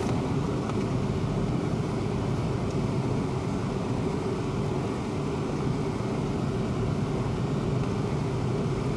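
Steady engine and tyre noise from inside an off-road vehicle driving along a dirt bush track, a low even drone.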